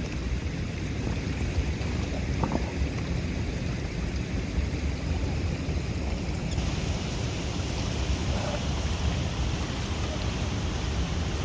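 Wind buffeting the microphone over a steady rushing hiss, with no engine or voice standing out. About two-thirds of the way through, the hiss turns brighter.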